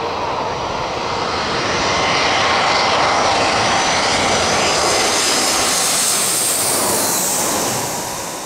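Airbus A320 jet engines on final approach with the gear down, passing low overhead: a steady jet whine over rushing engine noise that swells about two seconds in and falls away near the end.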